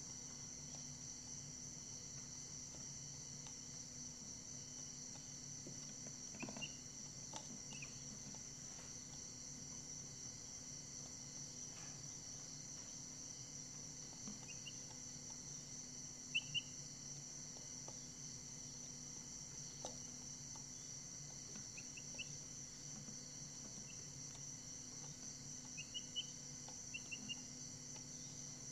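A steady high cricket trill with a low hum beneath it, broken by short, high peeps from Brahma chicks that come singly or in quick pairs a few times, the loudest pair about halfway through.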